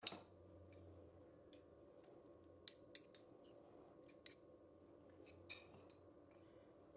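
A few faint, sharp clicks and taps of a metal spoon as apple and walnut filling is spooned onto cookie dough on a baking tray, over a low steady room hum.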